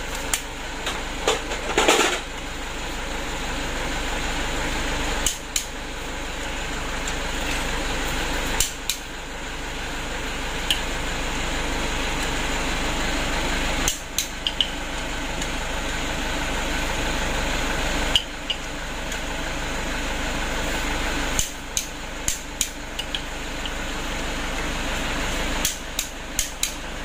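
Click-type torque wrench tightening the connecting-rod cap bolts of a Toyota 2KD diesel engine. It gives sharp metallic clicks every three to four seconds, then several in quick succession over the last few seconds, each click marking a bolt reaching its set torque. A steady background noise runs underneath.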